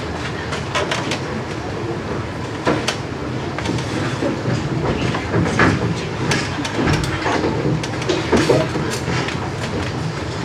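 Footsteps and scattered knocks and clicks as actors walk onto a stage, over a steady bed of hall and audience noise.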